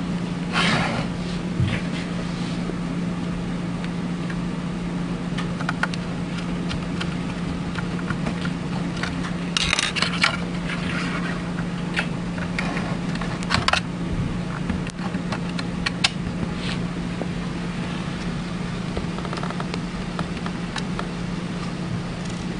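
Steady low machine hum in a small room, with scattered small clicks and brief scrapes from parts being handled during the reassembly of a syringe pump.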